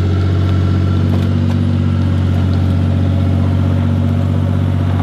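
Kawasaki UTV engine running steadily under load as the vehicle tows a wooden shed across wet pasture, a constant low drone that holds one pitch without revving.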